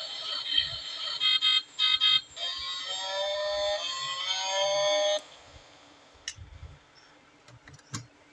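Electronic beeping and a synthesized tune climbing in steps, cutting off suddenly about five seconds in, followed by a few faint clicks.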